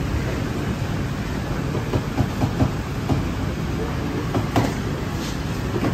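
Steady din of a busy hawker food centre, with a few short clicks and knocks in two small clusters, about two seconds in and near the end.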